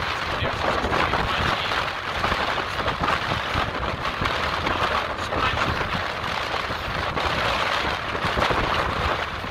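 Steady wind buffeting the microphone over ocean surf breaking against lava rocks, a continuous rushing noise with a gusty low rumble.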